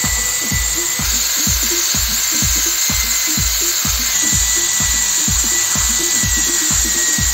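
Electronic dance music with a steady kick drum about twice a second, over the steady whine and scrubbing of an electric drill driving a wire brush against rusty cast-iron bench vise parts.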